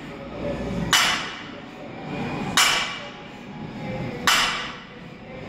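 Loaded barbell set down on the floor at the bottom of each deadlift rep: three sharp clanks about a second and a half apart, each with a brief metallic ring of the plates on the bar.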